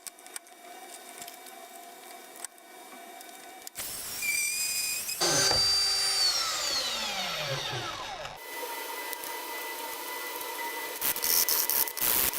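Electric drill motor running while working metal. About five seconds in, its whine falls steadily in pitch as it spins down, then a steady motor tone follows, and scraping begins near the end.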